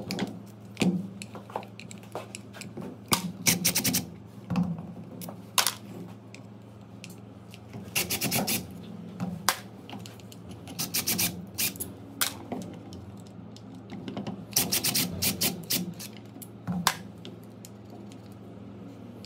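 Cordless screwdriver driving screws out of a hedge trimmer's motor and gear assembly in several short bursts of rapid clicking, with single clicks of metal and plastic parts being handled in between.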